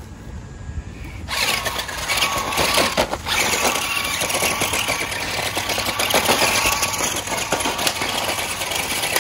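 Monster Jam Megalodon Storm RC truck's battery-electric drive motors whirring loudly as it drives over grass, starting about a second in, with a brief break around three seconds.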